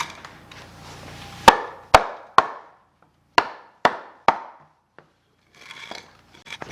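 Sharp tool strikes on wood framing: one knock, then two sets of three about half a second apart, with scattered lighter clicks near the end.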